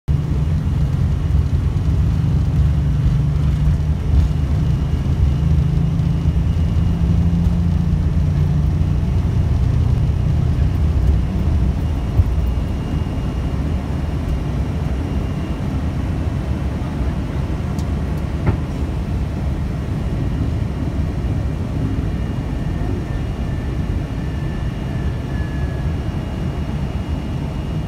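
Airliner takeoff heard from the cockpit: a loud, steady, deep rumble of engines at takeoff power and wheels on the runway, with a few single knocks. The rumble eases a little about halfway through as the aircraft climbs away.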